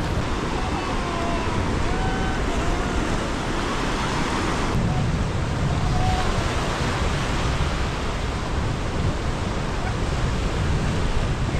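Steady rush of ocean surf along the beach, with faint distant voices coming through now and then.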